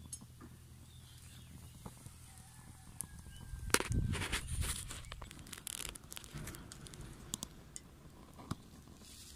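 Handling noises of a metal camping mug and gear on rock: scattered small clicks and knocks, with a louder burst of rustling and scraping starting with a sharp knock about four seconds in.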